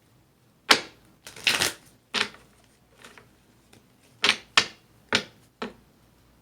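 Tarot cards being shuffled and handled: a string of sharp card snaps and slaps, about seven in all, one of them a longer riffling rustle about a second and a half in.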